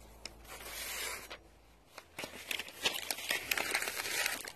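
A knife blade slicing through a sheet of paper with a soft hiss as the edge is tested for sharpness. This is followed by quiet paper rustling and crinkling with many small sharp clicks.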